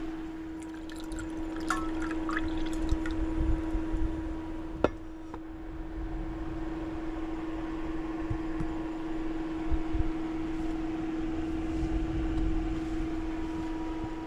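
A drink being poured, with light clinks and a sharp tap of glass or can, over a steady even hum.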